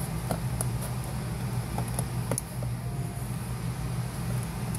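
Razor knife cutting into the plastic blower motor housing of a Chevy Astro van, giving a few scattered scrapes and clicks over a steady low hum.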